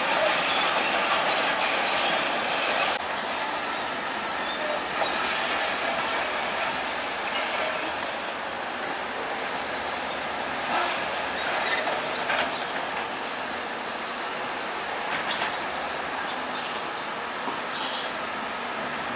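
Crawler bulldozer working: steel tracks squealing and clanking over a steady engine, with a few sharper metal knocks.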